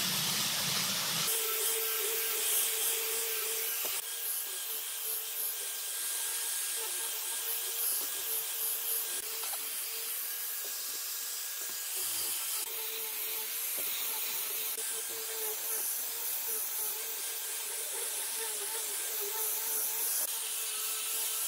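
Angle grinder fitted with a sanding disc running steadily while sanding a length of softwood, with a steady motor whine under the hiss of abrasive rubbing on the wood.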